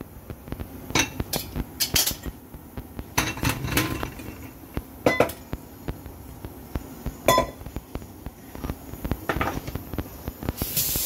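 Kitchen clatter: scattered knocks and metallic clinks of cookware and utensils, a few of them ringing briefly, with a short hiss near the end.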